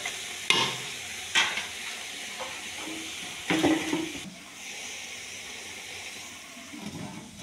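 Chicken sizzling in a large aluminium pot while a metal spoon stirs it, scraping and knocking against the pot wall a few times in the first four seconds. Near the end the lid goes on with a dull knock, to let the chicken cook covered.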